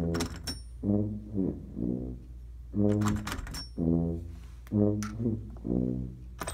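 Music: a low brass tune, trombone-like, played in short separate notes about one a second, with a few sharp clicks among them.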